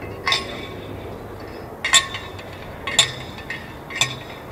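Light metallic clinks, four of them about a second apart, each with a short bright ring, over a steady low background hum.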